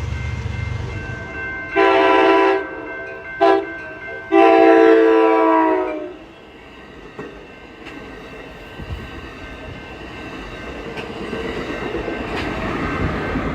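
Locomotive air horn sounding for a crossing: a blast, a short tap, then a longer blast, several notes sounding together as a chord. After the horn, the lower rumble of the train rolling by.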